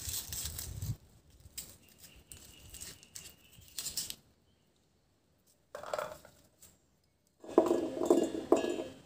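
A knife scraping and tapping as small shallots are trimmed and peeled. Near the end, peeled shallots are dropped by hand into a stainless steel mixer-grinder jar, clattering and clinking against the metal.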